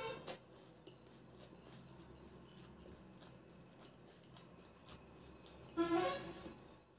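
Close-up mouth sounds of eating pani puri: chewing with small wet clicks, and a brief, louder pitched sound near the end.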